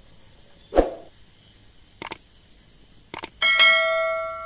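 Sound effect of a subscribe-button overlay: two quick pairs of mouse clicks, then a bell chime that rings out and slowly fades. A soft thump comes just under a second in.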